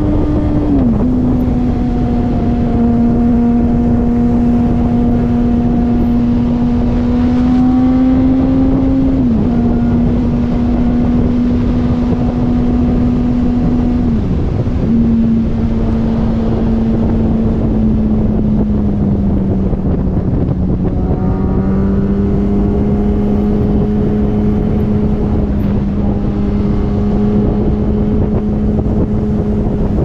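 2005 Yamaha YZF-R1's inline-four engine running through straight pipes at steady cruising revs, a loud, even drone. Its pitch dips briefly and settles a little lower three times: about a second in, about a third of the way through and near the middle.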